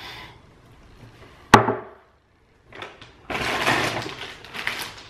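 A single sharp clack as the jar is put down on a hard surface. About two seconds later comes a couple of seconds of rustling, crinkling handling noise, as of packaging being handled.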